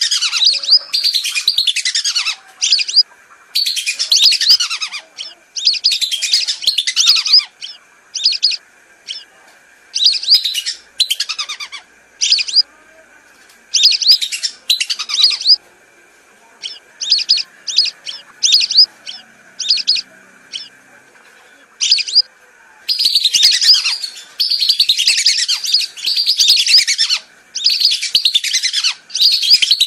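Lure recording of whistling duck (belibis) calls: repeated bursts of high whistling calls, some short and spaced apart, others in longer runs, growing dense for the last seven seconds. A faint steady tone sits beneath.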